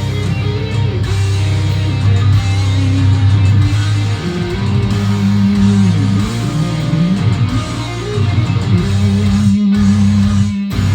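Heavy metal played on electric guitar over a steady low backing, with a lead line that bends and slides in pitch. It cuts out briefly just before the end.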